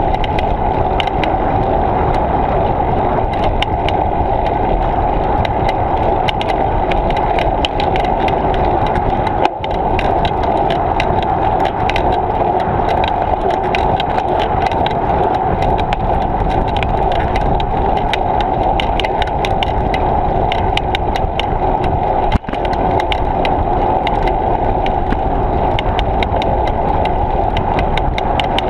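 Bicycle riding along, picked up by a bike-mounted action camera: a steady rush of wind and tyre noise with constant fine rattling clicks. The noise dips briefly twice, about a third of the way in and again about three quarters of the way in.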